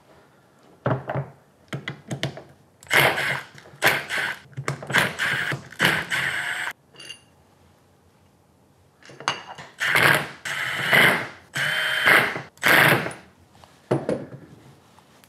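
Milwaukee cordless driver with a hex bit backing out the screws that hold the base plate of a power drawbar air motor, running in a series of short bursts with a pause in the middle.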